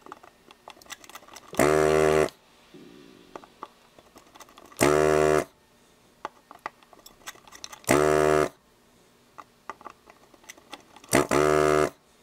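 A handheld desoldering gun's vacuum pump buzzes in four short bursts, each under a second and about three seconds apart, as it sucks molten solder out of a row of circuit-board pin joints. Faint ticks come between the bursts.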